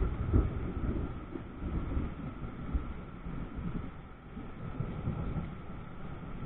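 Thunder rumbling low and rolling, swelling and easing unevenly, with a lull a little past the middle before it builds again.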